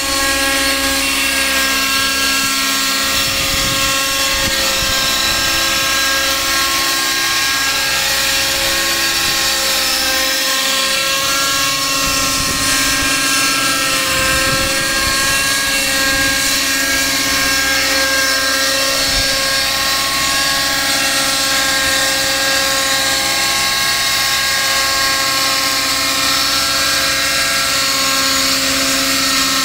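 Align T-Rex 600 Nitro RC helicopter's two-stroke glow engine running at flight revs with the rotor spinning. Its pitch shifts up and down as the helicopter manoeuvres, then holds steadier near the end once it is back on the ground.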